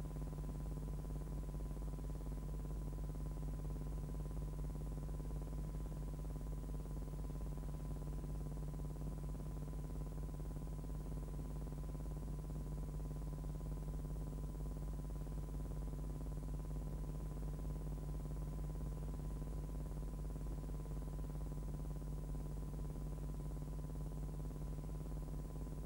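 Steady low hum with a thin, constant high-pitched tone over it and a faint hiss.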